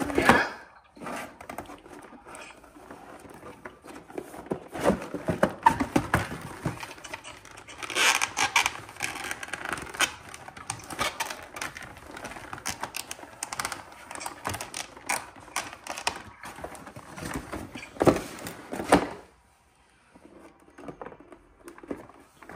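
Toy packaging being handled and pulled open: irregular rustling, crinkling and tapping of cardboard and plastic, which stops about nineteen seconds in.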